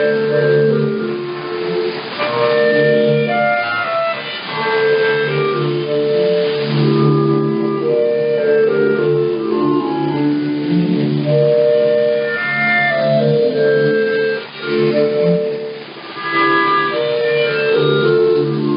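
Orchestral music with strings and woodwinds, received over shortwave radio, so it sounds thin with the highs cut off.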